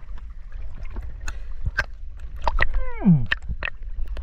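Water sloshing and gurgling around a camera at the surface as a spearfisher swims, with a steady low rumble and many sharp clicks. A short sound falls steeply in pitch about three seconds in.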